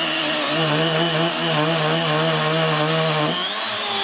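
Cordless Milwaukee battery chainsaw cutting through a thick log. Its motor note wavers steadily under load and changes pitch about three seconds in.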